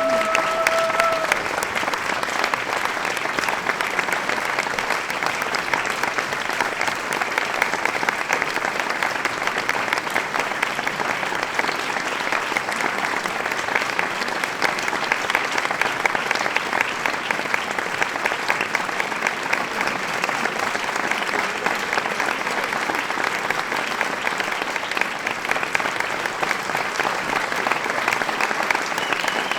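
Large crowd applauding steadily, a dense, even wash of many hands clapping, with a short pitched call from the crowd right at the start.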